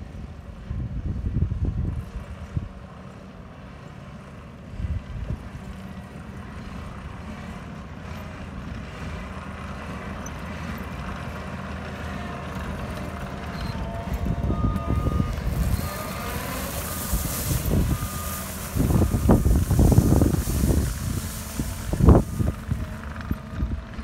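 Caterpillar 299D2 compact track loader running under a steady diesel engine hum, its backup alarm beeping about seven times in a row around the middle as it reverses. Near the end come the loudest sounds, bursts of noise that come as it spreads gravel and raises dust.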